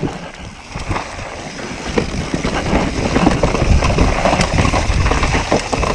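Mountain bike ridden fast down a dirt singletrack: wind buffeting the camera microphone over the rumble of tyres on dirt and roots, with frequent small knocks and rattles from the bike over bumps. It is a little quieter for the first second, then steady.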